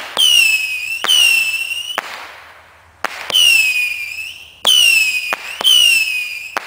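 Consumer fireworks shooting off whistling shots one after another: five loud whistles, each starting with a sharp crack and sliding slightly down in pitch over about a second, with a short lull about two seconds in.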